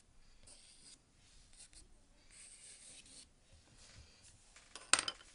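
Pencil scratching across sketchbook paper in a few short strokes, drawing wave lines, followed by a single sharp click near the end.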